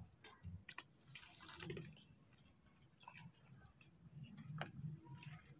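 Near silence, with a few faint scattered clicks and soft rustles.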